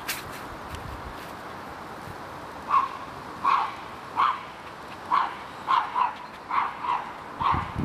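A Norfolk terrier barking: a string of about eight short barks, starting a little under three seconds in and coming roughly one to two a second.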